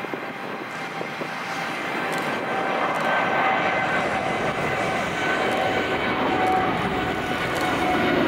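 Boeing 787-8 Dreamliner's twin turbofan engines at takeoff thrust as it climbs out: a rushing jet roar with steady whining tones on top, growing louder over the first few seconds and then holding.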